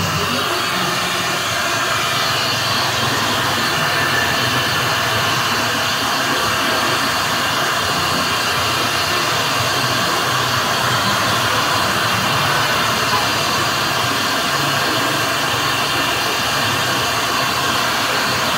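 Steady roar of a gas wok burner, with noodles and sauce sizzling in the wok.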